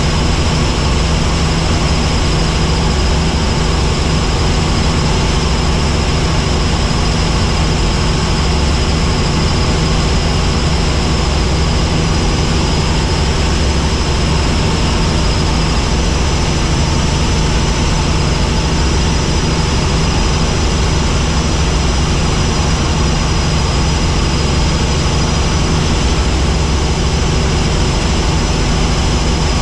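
Helicopter in flight: a loud, steady drone of rotor and turbine engine.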